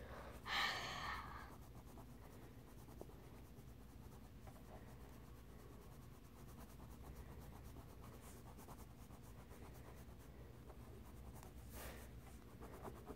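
Faint scratching of a coloured pencil, with a short rush of noise about half a second in.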